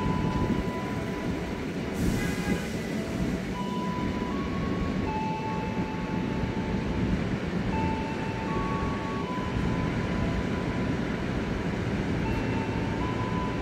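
KRL Commuter Line electric train moving slowly past the platform: a steady low rumble, with thin high tones that come and go and a brief hiss about two seconds in.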